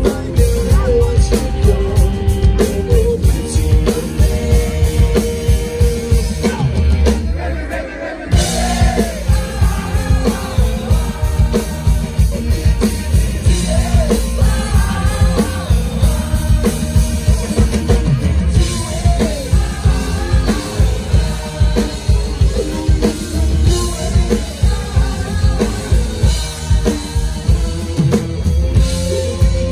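Live rock band playing with a drum kit keeping a steady beat and a singer's voice; the music thins briefly about seven seconds in, and the singing comes in strongly just after.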